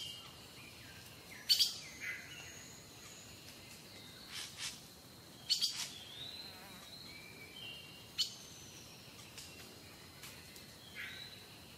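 Small birds chirping and whistling: a sharp high chirp every couple of seconds, with short clear whistled notes between them, over a faint steady hiss.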